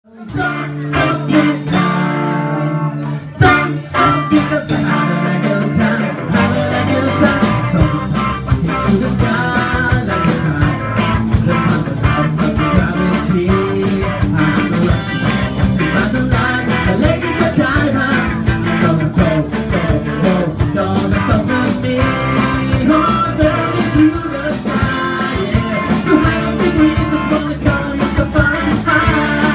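A rock band playing live, with guitar, bass and drums and a singer; the band comes in sparser at first and fills out into the full band about six seconds in.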